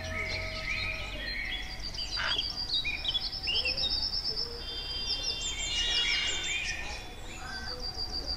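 Several birds chirping and calling at once, with quick repeated notes and short trills overlapping throughout.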